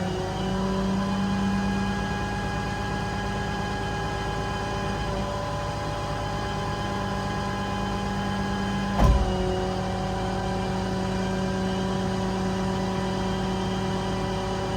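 Summit 6620 hydraulic crane being operated, a steady mechanical whine with the truck's 6.7 Cummins diesel running underneath. A single clunk about nine seconds in, after which the whine carries on at a slightly different pitch.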